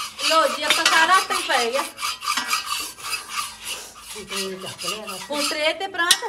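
Metal spatulas scraping and stirring a thick khoa (reduced-milk) mixture against the sides and bottom of a large iron karahi, in quick repeated rasping strokes.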